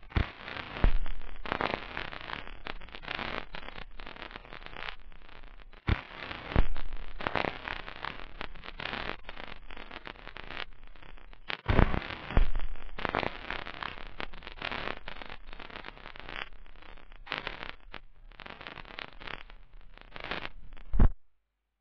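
Continuous crackling noise with irregular pops. The loudest pops come about a second in, around six seconds in, around twelve seconds in and near the end, and then it cuts off suddenly.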